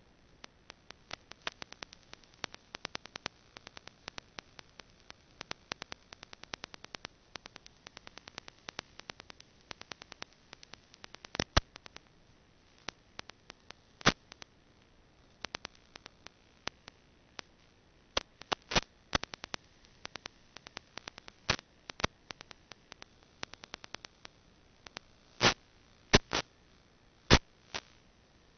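Irregular sharp clicks and crackles over a faint hiss, with a few louder pops, the loudest three near the end.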